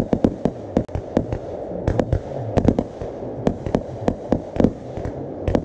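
Fireworks display: aerial shells bursting in quick, irregular succession, several sharp bangs and crackles a second.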